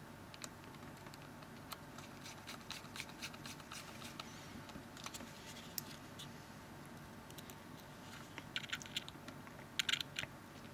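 Faint clicks and scratches of a T5 Torx precision screwdriver turning tiny screws into a phone's plastic frame, with light handling of the phone. The clicks come thicker and louder near the end.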